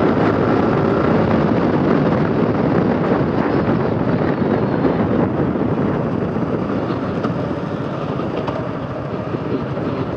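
Wind rushing over a motorcycle-mounted microphone, with a Yamaha R15 V4's single-cylinder engine running underneath, as the bike slows from about 80 km/h toward a crawl. The rush eases off gradually through the second half.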